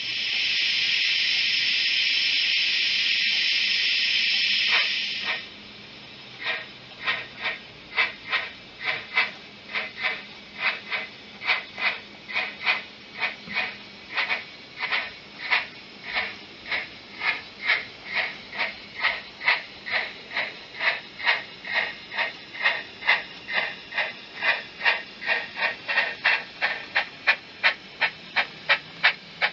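Sound decoder of a Bachmann Double Fairlie model steam locomotive: a steady hiss of steam for about five seconds that cuts off, then exhaust chuffs as it moves off. The chuffs start at about two a second and quicken and grow louder as the locomotive gathers speed.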